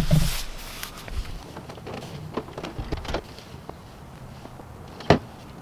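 Plastic door trim panel being pulled and worked at, giving a knock at the start, scattered light clicks and knocks, and one sharp snap about five seconds in.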